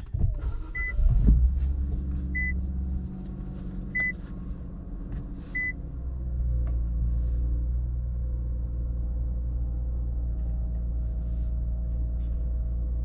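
Infiniti Q50 Red Sport 400's 3.0-litre twin-turbo V6 cold-starting on the stock exhaust: it catches, flares up about a second in, then settles into a steady high idle. The car's warning chime beeps four times over the first few seconds.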